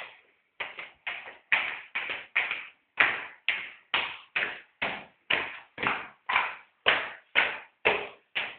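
Footsteps climbing a staircase at a steady pace, about two steps a second, each step a sharp tap on the hard treads.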